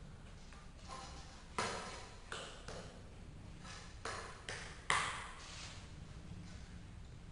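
A short piece of prefinished parquet plank set down and knocked against the wooden floor several times, giving about six sharp wooden clacks with a short ring after each, the loudest a few seconds in.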